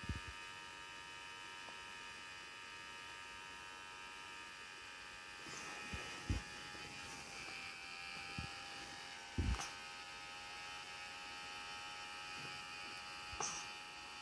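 Portable nebulizer running with a steady buzzing hum as it turns liquid medicine into mist, with a few dull handling thumps, the loudest about six and nine and a half seconds in.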